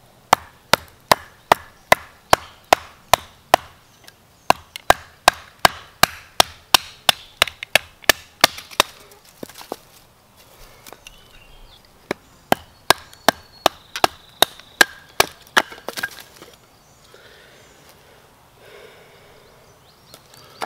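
Axe chopping into a piece of wood to rough out a bow-drill spindle: quick sharp strikes about three a second for some nine seconds, a pause, then a shorter run of a few seconds.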